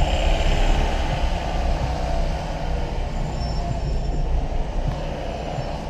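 Steady engine and road rumble inside the cabin of a moving Renault Clio with a 1.6 16V K4M four-cylinder engine.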